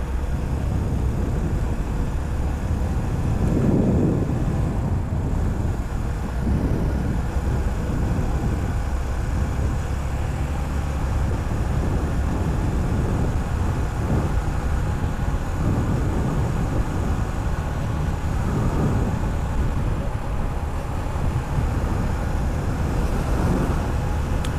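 Suzuki GR150's single-cylinder four-stroke engine running steadily at highway cruising speed, with wind rushing over the microphone.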